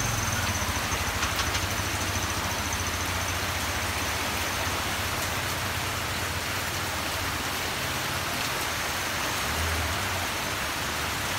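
Heavy typhoon rain pouring steadily onto corrugated metal roofs, an even, unbroken hiss.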